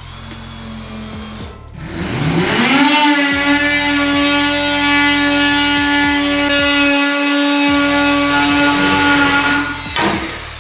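A handheld corded power tool's electric motor spinning up with a rising whine, then running at a steady high pitch for about eight seconds before switching off.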